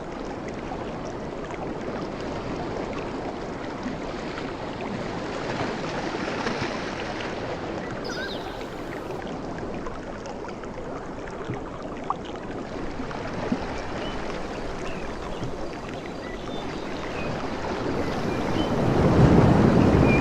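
Ocean surf on a beach: a steady rush of waves, with a bigger wave swelling loudest near the end.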